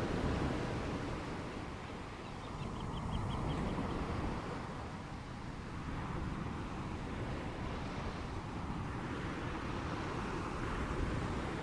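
Steady rushing of ocean waves and wind, with a short rapid run of faint high ticks about two and a half seconds in.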